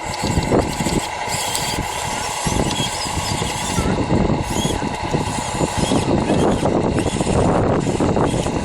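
Small motors of radio-controlled model cars running, with a steady high whine.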